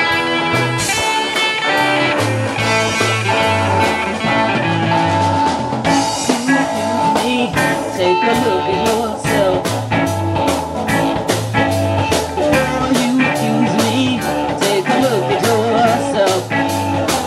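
Live blues band playing: electric guitar over bass and keyboard, with a steady drum beat.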